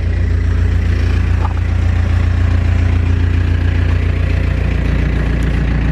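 Yanmar diesel engine of a Mustang skid steer idling steadily, loud.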